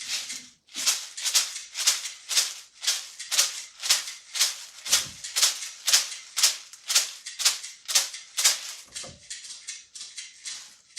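Homemade shaker made from recycled containers, shaken in a steady rhythm of about two strokes a second, each stroke a bright rattle. Near the end it turns to softer, quicker shaking.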